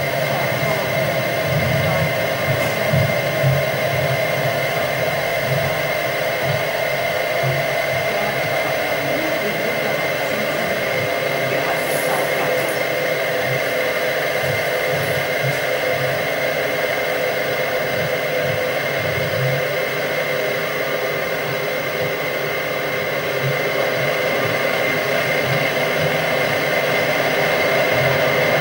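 Live electronic soundscape played from a laptop: a dense, steady machine-like drone of noise with held tones and a fluttering low rumble, swelling slightly near the end.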